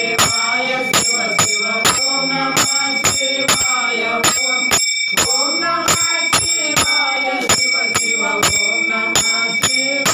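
Devotional music interlude: small hand cymbals struck in an even beat, about two to three strikes a second, with a steady bright ring, over a melody line.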